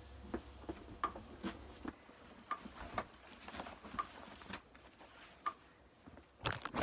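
Horse tack being pulled off wall racks: scattered light knocks and clicks as the saddle, saddle pad and buckles are handled, with a louder cluster of knocks near the end.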